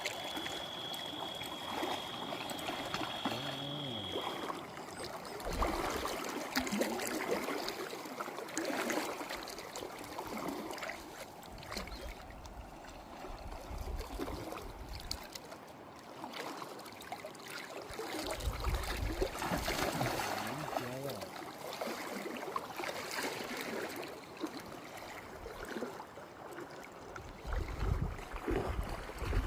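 River water running and gurgling, with a steady high tone that stops about four seconds in and low bumps now and then.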